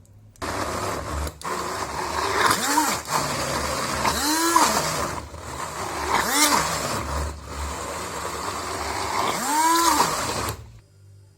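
Electric blender running, its motor pitch swelling and falling back about four times, then switching off near the end.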